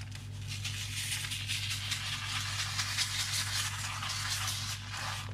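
Salt pouring from a carton onto newspaper: a dense, steady hissing patter of grains that builds about half a second in and eases off near the end. A steady low hum runs underneath.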